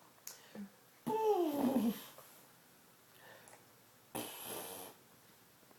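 Baby's vocal noises: a pitched squeal gliding downward about a second in, then a breathy spitting noise blown through the lips about four seconds in.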